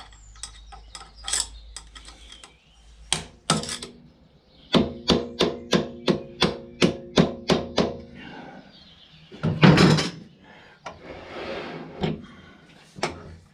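Hammer tapping on metal: a few scattered knocks, then a quick even run of about a dozen ringing taps, about three a second. A single louder clatter comes a couple of seconds later.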